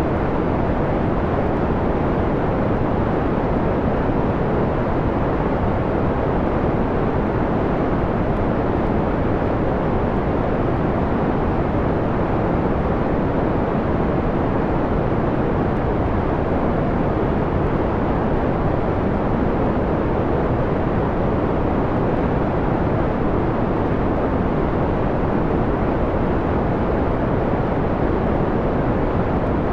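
Steady electronically generated noise, filtered to a mellow, muffled rush: most of it is deep and middle in pitch, with the treble cut away. It holds even, with no change or breaks.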